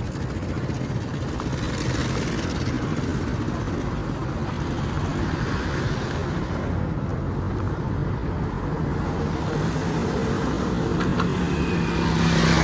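Road traffic: vehicle engines running steadily, with one engine growing louder near the end as it comes close.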